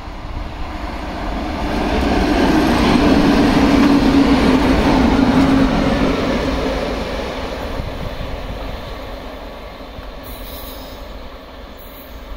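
Two coupled WAG-7 electric locomotives running light, without wagons, passing at speed: wheels on the rails and a low steady hum swell to a peak a few seconds in, then fade as the locomotives run away.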